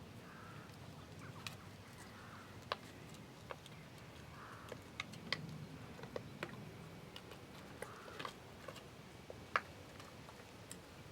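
A horse working its mouth over cough medicine: faint, irregular wet clicks and smacks of lips and tongue, about a dozen, with the loudest near the end.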